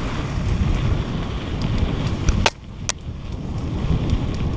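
Wind rumbling on a helmet-mounted camera's microphone with a mountain bike rolling over a dirt trail. Two sharp clicks from the bike about halfway through.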